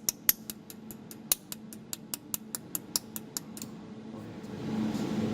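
Jewelry laser welding machine firing a steady train of pulses, each a sharp snap, about four to five a second, which stop about three and a half seconds in. Near the end a steady low hum rises and takes over.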